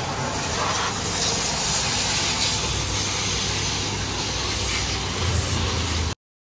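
Water spraying from a hose onto a tractor's bodywork as it is washed: a steady hiss that cuts off suddenly about six seconds in.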